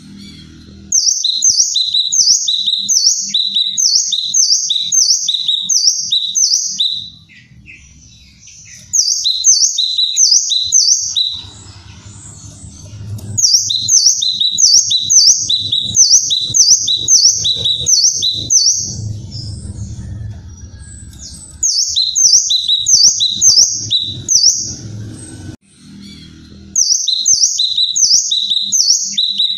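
Cucak kinoi singing loudly: long runs of sharp, high notes, each falling in pitch, about two a second, broken by a few short pauses.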